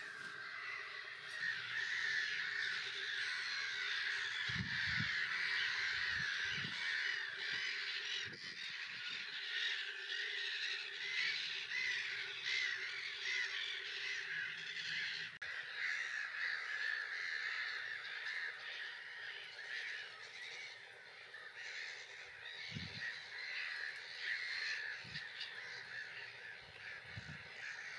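Black-headed gulls calling, many calls overlapping in a steady chorus from the colony, with a few low thumps now and then.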